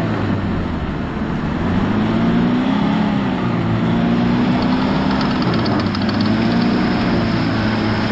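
Toyota Land Cruiser's engine revving, its pitch rising and falling, as the bogged 4x4 churns its wheels in deep mud without getting out.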